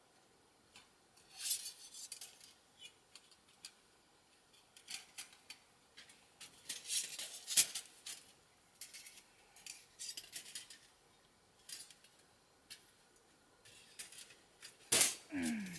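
Thin perforated sheet-metal panels of a small folding camp stove being handled and fitted together, making irregular light clicks and clatters. A louder clank with a short falling scrape comes near the end.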